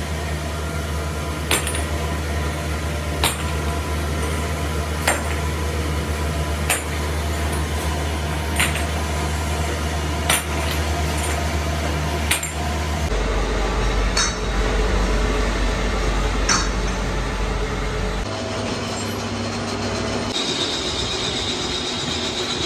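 Steady workshop machinery hum with sharp metallic clinks of metal castings, coming regularly about every second and three quarters at first and more sparsely later. The hum changes pitch abruptly twice, and a faint high steady whine joins near the end.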